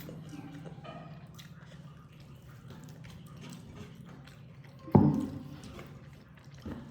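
Food being handled by hand on a plate, with small wet squishes and clicks over a low steady hum. One sharp knock about five seconds in, and a smaller one near the end.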